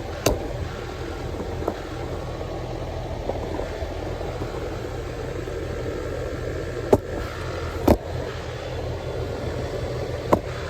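Lennox Elite 5-ton two-stage central air conditioner condensing unit running steadily at full stage: compressor hum under the rush of the condenser fan. A few sharp knocks cut in, near the start, twice around seven to eight seconds in, and again near the end.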